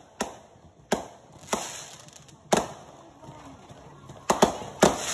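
Fireworks going off: about seven sharp bangs at uneven intervals, each trailing off in a short echo, with a quick pair near the end.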